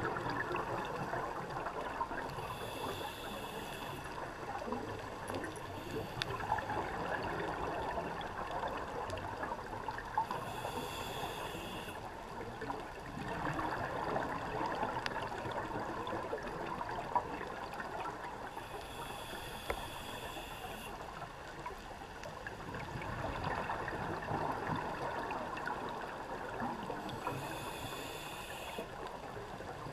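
Underwater scuba breathing through a regulator: a hissing breath about every eight seconds, four times, between slow swells of bubbling and water noise. A few faint clicks sound in between.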